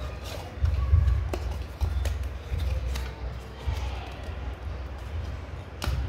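Cardboard smartwatch box being handled, its inner tray sliding out of the box, with low dull bumps and a few sharp taps. Faint music in the background.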